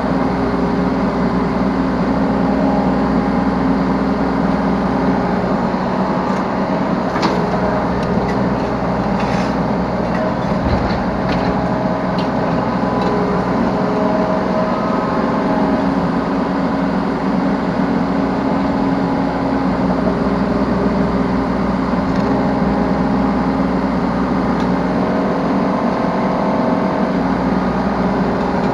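Yanmar B3 Sigma 3-ton mini excavator's diesel engine running steadily under hydraulic working load, heard from the operator's seat, with a few short knocks about a third of the way in.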